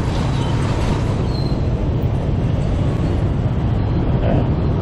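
Steady street traffic noise, with a heavy low wind rumble on the microphone.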